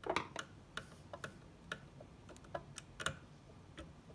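About a dozen small, irregular clicks and ticks as wire ends are worked and fastened into the terminal block of a variable frequency drive.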